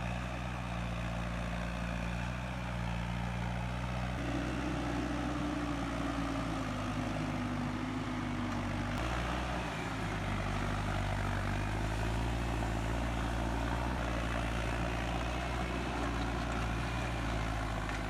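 A heavy vehicle's engine running steadily under load, its pitch sliding slowly down and shifting a little partway through.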